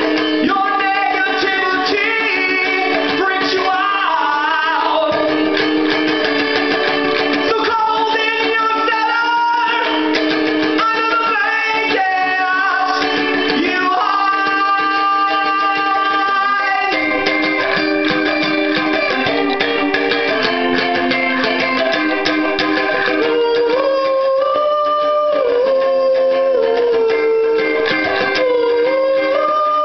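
A man singing while strumming a cigar box guitar.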